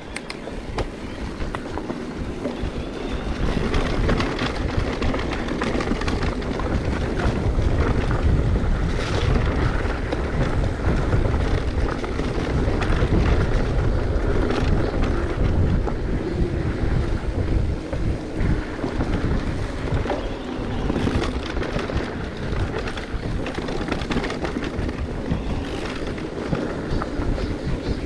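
Wind buffeting the microphone over a continuous rumble from a mountain bike riding a trail, growing louder about four seconds in.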